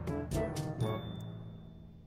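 Background music fading out, its last notes dying away as the level drops steadily.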